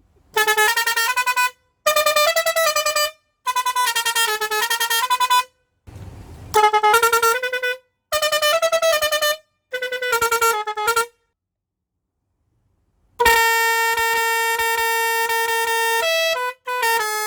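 A multi-note musical bus horn playing a tune in short phrases of stepped notes, with a brief rush of noise about six seconds in. About thirteen seconds in it holds one long steady tone, then ends with a few quick notes.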